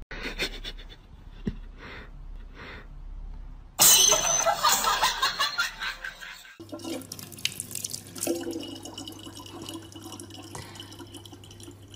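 Soft repeated sniffs. About four seconds in, a loud burst of noise lasts a few seconds. After that a thin stream of tap water runs into a plastic bottle over a steady low hum.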